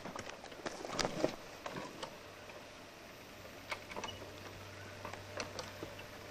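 Faint scattered clicks and knocks from an old dirt bike being worked at the handlebar and kick-starter, its engine not running.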